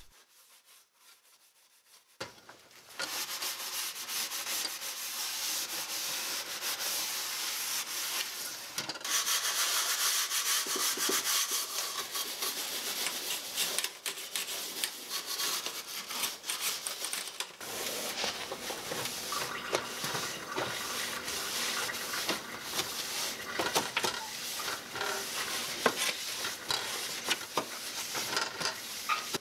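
Gloved hands scrubbing and wiping an electric coil stove's enamel top and control panel, a steady rubbing that starts about two seconds in, with many small clicks and knocks throughout.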